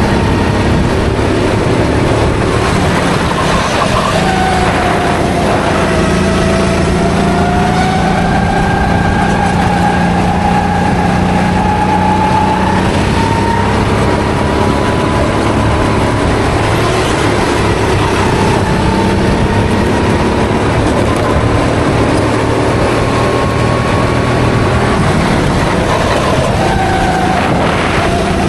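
Go-kart engine heard onboard at racing speed, with a steady low drone under it. Its pitch climbs slowly for several seconds, eases, climbs again and drops near the end as the kart accelerates down the straights and slows for corners.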